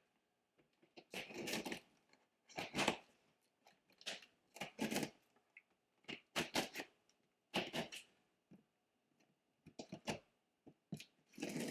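Pocket knife cutting through the tape and flaps of a cardboard shipping box: a series of short tearing, scraping strokes, about a second apart.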